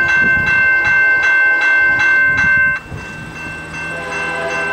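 Railway level-crossing warning bell ringing steadily, about three strokes a second, then stopping about three seconds in. A fainter steady low hum follows.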